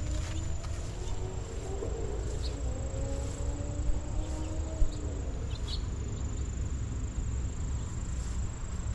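Insects trilling in one steady, high-pitched drone over a low rumble, with a few faint high chirps and a brief thump about five seconds in.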